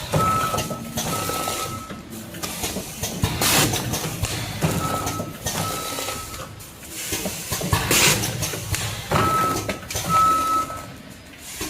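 Vertical form-fill-seal packing machine with volumetric measuring cups (Autompack ATM-320C) running through its bagging cycle. Each cycle, about every four and a half seconds, brings a short loud burst, with a pair of short high steady tones between the bursts.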